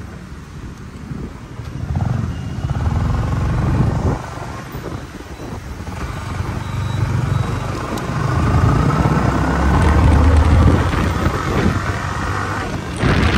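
Motorcycle being ridden through traffic, the engine rising and falling as the rider speeds up and eases off. It is loudest from about two to four seconds in and again from about eight to eleven seconds, with a short burst of noise near the end.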